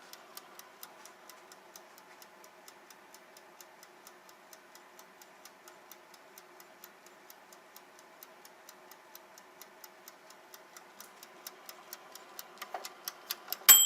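Bonnet hair dryer's dial timer ticking rapidly and evenly, about four or five ticks a second, over the faint steady hum of the dryer running. The ticks grow louder near the end, closing on one sharp click with a brief ring.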